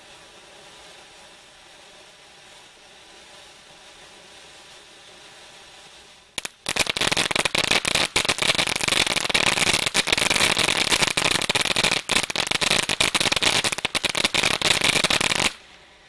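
Humdinger 200 g ground fountain firework spraying sparks with a faint hiss. About six seconds in it breaks into loud, dense crackling that lasts about nine seconds, then stops suddenly, leaving the faint hiss again.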